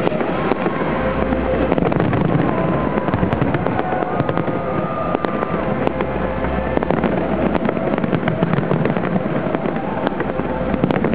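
Large fireworks display going off in a dense, continuous barrage of bangs and crackles.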